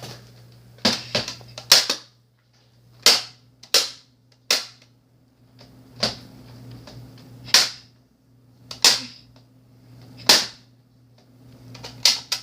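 Nerf Elite Rampage pump-action blaster being pumped and fired over and over: about a dozen sharp plastic clacks and shots, spaced a second or so apart, from a blaster that keeps malfunctioning and won't work properly. A faint steady hum runs underneath.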